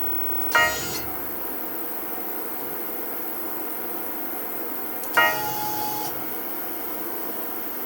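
Steady hum of a desktop CNC router setup, still switched on after its engraving job, broken by two sharp ringing clinks, about half a second in and about five seconds in, the second one trailing a brief held tone.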